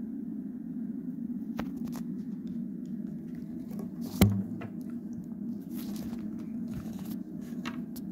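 Handling noise from a handheld recording device: scattered faint clicks and one sharp knock about four seconds in, over a steady low hum.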